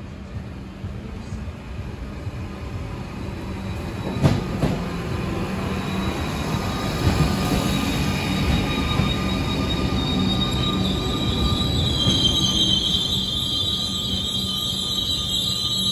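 Comeng electric suburban train running into a station platform close by: wheels and running gear rumbling and growing louder, with a sharp knock about four seconds in. A high-pitched wheel squeal sets in about twelve seconds in as it passes.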